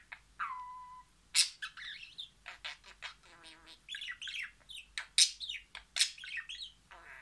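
Pet budgerigar chattering: a busy warble of quick chirps and sharp squawks, with a whistle that slides down and holds steady about half a second in.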